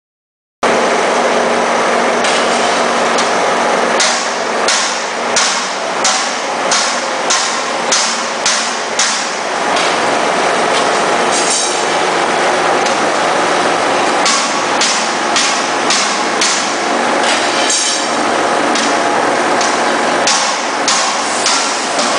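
Lead cathode casting machine running: steady mechanical din with runs of sharp metallic clanks, about one and a half a second, broken twice by a brief hiss. It cuts in half a second in.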